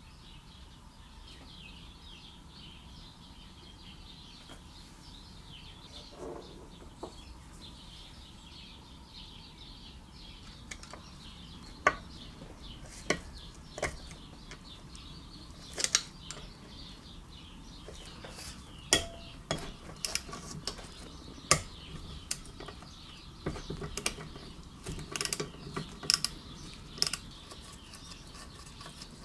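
Faint steady hiss, then from about ten seconds in, scattered sharp metallic clicks and clinks: a hand tool and gloved fingers knocking against the connecting rod and crankcase inside a 3 hp Briggs & Stratton horizontal-shaft engine.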